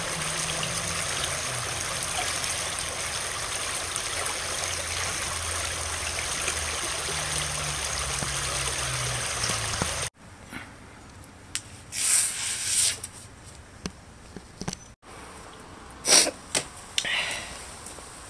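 Steady rush of a flowing creek for about ten seconds, then an abrupt cut to a much quieter spot with a burst of rustling and a few light clicks and rustles near the end.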